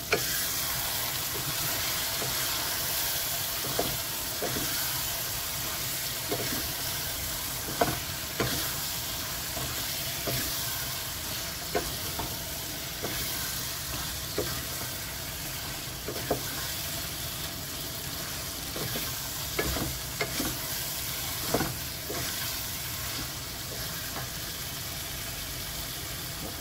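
Thick chicken sambal sizzling in a saucepan while a wooden spatula stirs it. Sharp knocks and scrapes of the spatula against the pan come every second or two over the steady sizzle.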